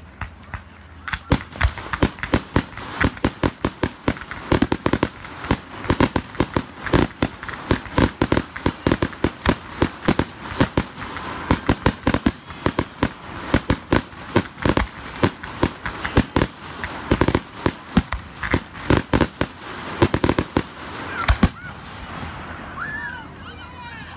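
Fireworks going off in a rapid barrage of sharp bangs and crackles, several a second, easing off about 21 seconds in.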